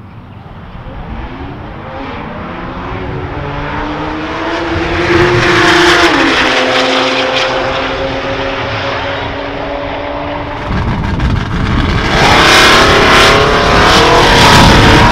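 Cars accelerating hard down a drag strip, a Porsche 911's flat-six among them. The engine note climbs through the gears, with a gear change about six seconds in. About eleven seconds in it becomes suddenly louder and closer as another launch starts.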